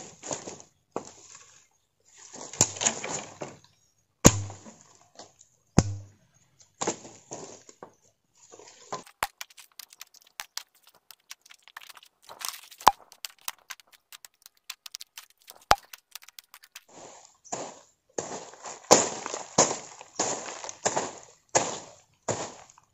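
Dry leaves, twigs and brush crunching and rustling underfoot and under a hand tool as undergrowth is cleared, with a few sharp snaps and knocks. A stretch of fine crackling in the middle, then dense crunching again near the end.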